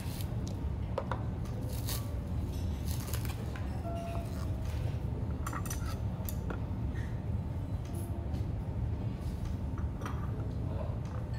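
Tableware in use: scattered light clicks and clinks of dishes and utensils, over a steady low room hum.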